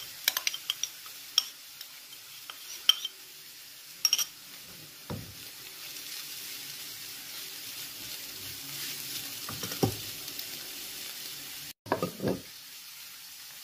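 Grated carrots and onions frying in oil in a nonstick pan, stirred with a spatula: sharp clicks and scrapes of the spatula against the pan in the first few seconds, then a steady sizzle.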